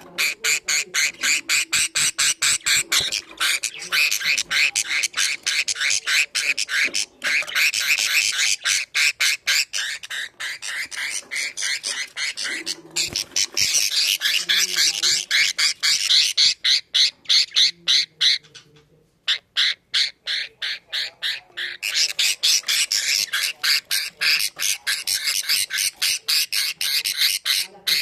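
Budgerigar chicks giving a rapid, steady stream of high chirps, several a second, under their brooding mother; this is the typical food-begging chatter of nestling budgies. The chirping pauses briefly about two-thirds of the way through.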